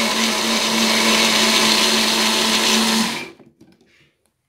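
Compact personal blender running steadily as it purées boiled apples with their cooking water. It is switched off a little over three seconds in, and the motor winds down briefly.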